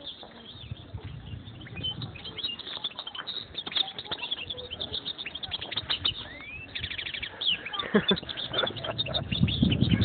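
European goldfinch singing: a fast run of short twittering notes, a rising whistle about six and a half seconds in, then a quick trill. Low thumps and rustling come in near the end.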